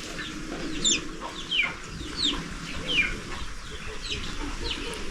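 Chickens calling: a run of short, high chirps, each falling in pitch, about one every 0.7 seconds, over a low background murmur.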